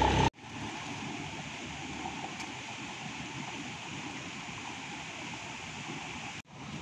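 Steady, even rushing outdoor ambience with no distinct events, cut off briefly just after the start and again near the end.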